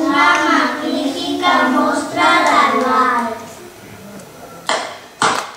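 A group of young children's voices in unison, singing or chanting in a sing-song way, played from a projected video over a hall's speakers. The voices stop a little after halfway, and two short sharp sounds come near the end.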